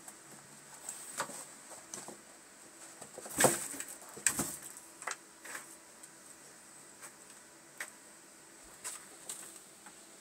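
Two cats scuffling on a bristle doormat: irregular scratches, scuffs and taps of paws and claws on the mat and floor, with a louder thump about three and a half seconds in and another just after four seconds.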